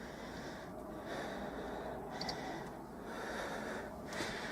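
A person breathing heavily and noisily: hissing breaths in and out, about one a second.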